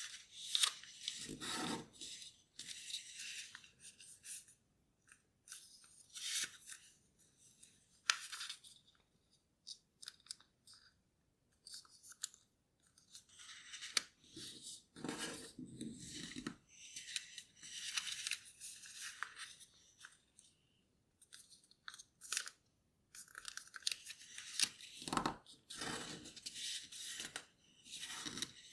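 A sheet of origami paper rustling and crinkling as it is folded and creased by hand. The sound comes in short, irregular bursts with brief pauses and a few sharp clicks.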